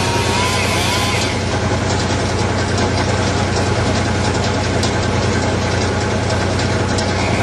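Chainsaw running, cutting into the ash stem, then easing off the cut about a second in and running on more softly before the fuller cutting sound returns near the end.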